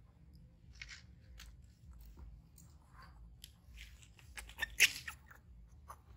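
A cloth towel rubbing and patting a small wet monkey dry: scattered soft rustles and scrapes, with a louder cluster of crackly noises near the end.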